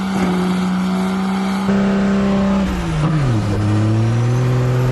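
Car engine held at full throttle, running at a high steady pitch that sags sharply about three seconds in and then slowly climbs again. The throttle is zip-tied wide open.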